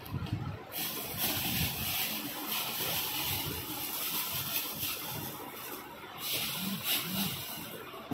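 Clear plastic wrapping crinkling and rustling as a boot is pulled out of it, in one long spell and then a shorter one about six seconds in.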